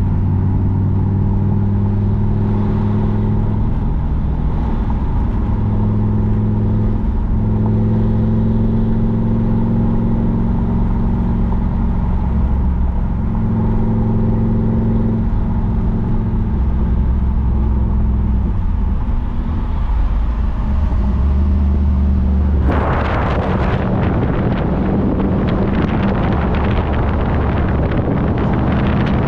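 Car engine running steadily while driving, its note shifting a few times. About two-thirds of the way through, loud wind rush suddenly joins it.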